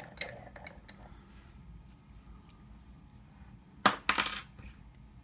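Light metallic clicks and clinks from a picked Kwikset-style brass lock being handled in a bench vise, then a short, louder clatter about four seconds in as the lock comes out of the vise.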